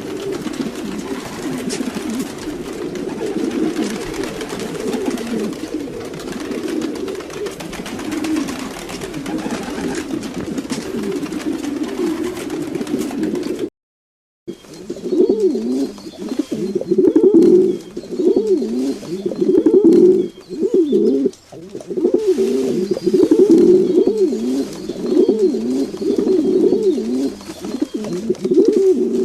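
Domestic pigeons cooing, many calls overlapping. About halfway through the sound drops out for a moment, then the cooing returns louder as repeated rising-and-falling coos.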